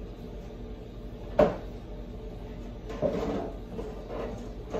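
Kitchen handling sounds while raw ground-beef meatloaf mixture is worked in a glass bowl by gloved hands: a sharp knock about a second and a half in, then a stretch of softer rustling and scraping, and another knock at the very end.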